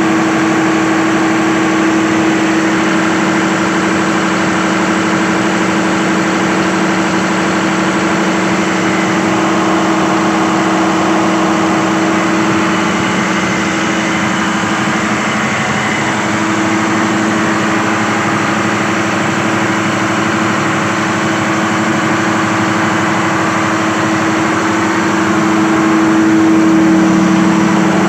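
Freshly overhauled Cummins diesel engine running steadily at a constant speed, getting a little louder near the end.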